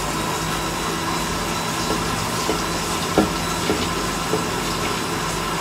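Electric blender running steadily at full speed, grinding a sharbat of soaked dried apricots, tamarind pulp, sugar and ice, with a few faint knocks.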